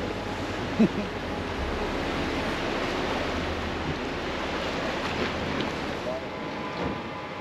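Sea waves washing with wind on the microphone, over a low steady rumble that fades out about six seconds in.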